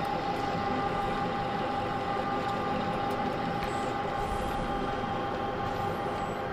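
Manual metal lathe running steadily, its spinning chuck and drive giving a constant hum with a steady high whine, while the tool takes a facing cut across the end of a one-inch shaft.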